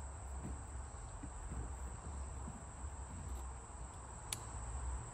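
Insects chirring steadily with a high-pitched buzz, and one faint click about four seconds in.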